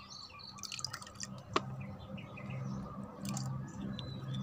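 Fermented rice-water liquid dripping and trickling from a spoon and bottle into the water of a galvanized metal watering can, with scattered small drips and one sharper tick about one and a half seconds in.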